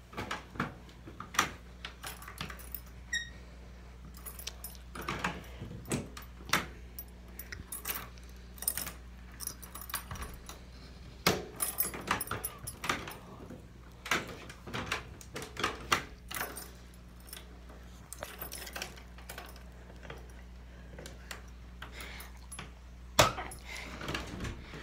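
Door handle and latch hardware rattling and clicking again and again as the handle is worked back and forth, with one sharp, louder click near the end.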